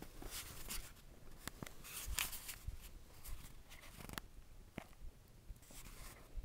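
Faint scattered clicks and brief rustles, like small objects being handled, with about half a dozen sharp ticks spread across the few seconds.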